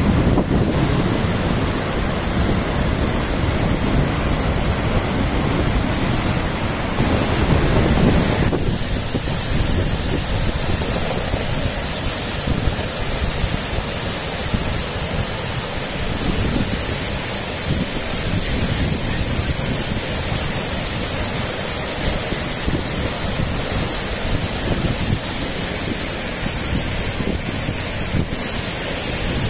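Torrent of fresh water rushing through a breach in a beach sand bar, a steady heavy rush of churning water running out into the surf. Wind rumbles on the microphone, heavier in the first eight seconds or so.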